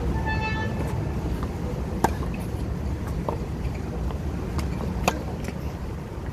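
Tennis ball rally on a hard court: two sharp pops of the ball off the racquet strings about two and five seconds in, with fainter ball bounces between, over a steady low rumble. A brief squeak near the start.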